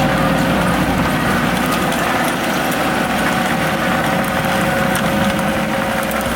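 Wacker Neuson ET65 excavator's engine running steadily at a constant pitch, with a steady whine over the low rumble, while the machine is tested after its track and idler change.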